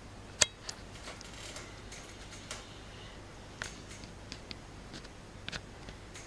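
A handful of light, scattered clicks and taps over a faint steady low hum, the sharpest about half a second in.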